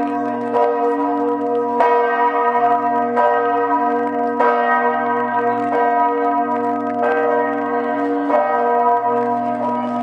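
Large bells of St Mark's Campanile ringing loud and close. Strokes come about once every second and a quarter, each one ringing on into the next so the tones never die away.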